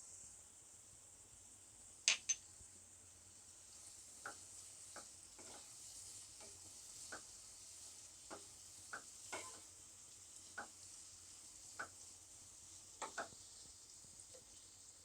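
Chopped onions frying in oil in a pan with a steady, quiet sizzle, while a spoon stirs them, scraping and tapping against the pan roughly once a second. Two sharp clinks of the spoon on the pan about two seconds in are the loudest sounds.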